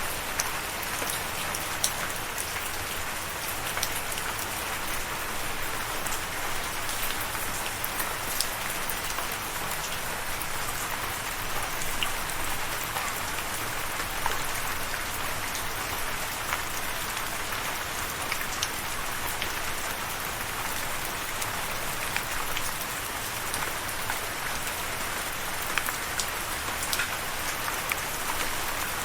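Steady rain falling, an even hiss with many sharp individual drops pattering on a hard surface.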